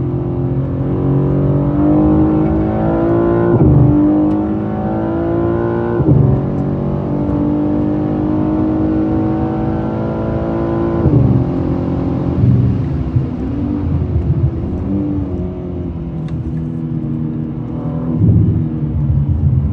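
BMW M3 (G80) twin-turbo straight-six engine, heard from inside the cabin, pulling hard under full throttle with its pitch climbing through the gears. There are two quick upshifts, each a sudden drop in pitch, in the first six seconds, then a long rising pull. About eleven seconds in it lifts off for braking, and short revving blips follow as it downshifts, about a second later and again near the end.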